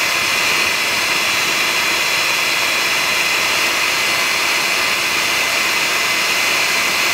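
Electric hand mixer running steadily with a high-pitched whine, its twin beaters whipping egg whites and sugar in a glass bowl toward stiff peaks.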